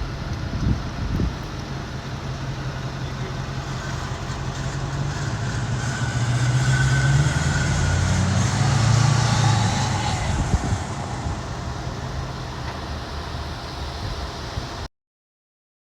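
Ford Power Stroke diesel pickup engine running and driving off. Its note swells for a few seconds about midway, then eases away, and the sound cuts off near the end. The truck is running again after a no-start traced to corroded battery terminals.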